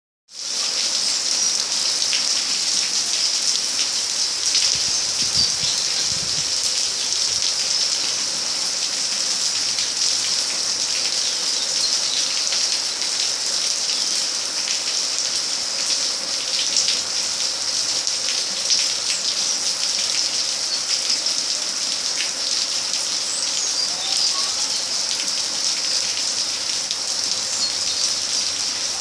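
Steady rain falling: an even hiss with many scattered drop ticks. A few faint bird chirps come through over it.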